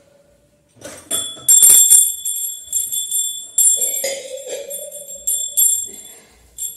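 Small brass puja hand bell rung continuously, starting about a second in, with high ringing tones that rise and fall with each shake, plus occasional clinks of brass puja vessels.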